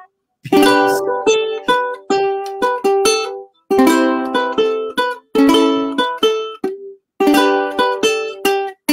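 Carbon-fiber ukulele played solo, picked and strummed chords in short phrases separated by brief breaks.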